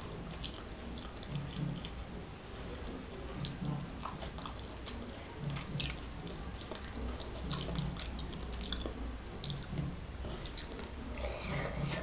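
Close-miked chewing of soft food, boiled egg in curry sauce with rice, with wet mouth smacks and small clicks.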